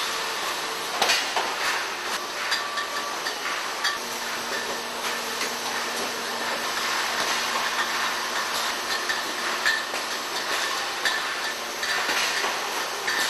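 Brewery bottling and packaging line running: a steady mechanical clatter with frequent sharp clinks and knocks from glass beer bottles jostling along a conveyor and the case-packing machinery.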